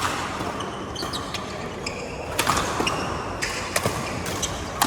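Badminton rally: about five sharp cracks of racket strings striking the shuttlecock, irregularly spaced, over steady court background noise.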